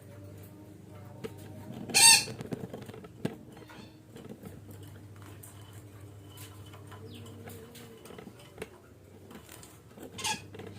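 Red-breasted parakeet giving two short, harsh squawks: a loud one about two seconds in and a fainter one near the end, over a faint steady low hum.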